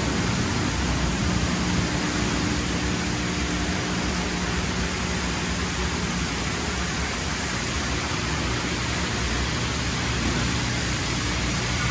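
MacNeil tunnel car wash running: water spraying and cloth brushes spinning over the car, a steady hiss over a low, even hum from the equipment.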